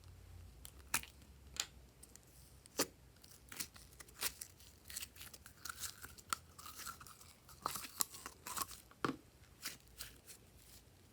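Slime being squished and worked by hand, giving irregular sharp crackles and pops, several a second at times.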